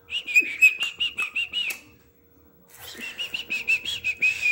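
Cockatiel warbling: two bouts of quick, wavering chirps held at about the same pitch, mixed with short clicks, with a pause of about a second between them.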